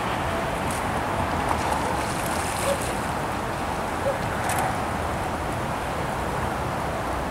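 Steady outdoor rushing noise of wind on the microphone mixed with flowing river water.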